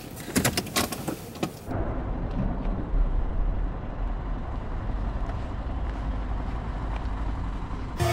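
A few sharp clicks and knocks in the first second and a half, then a car's steady low rumble of engine and road noise while driving.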